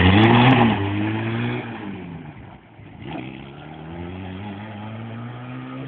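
ATV quad engine revving hard, its pitch swinging up and down, then fading over the next couple of seconds. About three seconds in, the engine note climbs steadily as it accelerates again at a lower level.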